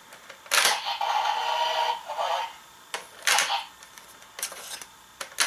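Dragvisor Zwei toy's electronic sound effect from its small, tinny speaker, lasting about two seconds. It is followed by a few short plastic clicks and clatters as the toy and its card slot are handled.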